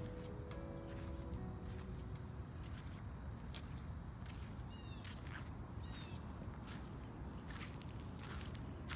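Insects chirring steadily at a high pitch over a low rumble, with a few faint clicks and two short faint chirps about halfway through.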